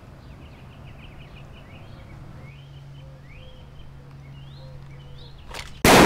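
Small birds chirping over a low steady hum, then, just before the end, two faint clicks followed by a single loud, sudden handgun shot.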